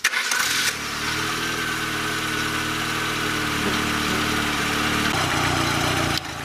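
Peugeot 205 engine starting and then idling, still misfiring after a spark plug change. The sound changes about five seconds in and drops sharply near the end.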